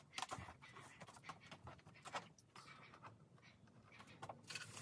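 Faint, scattered clicks and taps of hard plastic toy kitchen pieces being handled.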